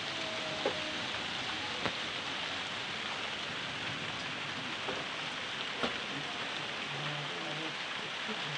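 Steady rain falling, with a few sharp ticks of drops landing.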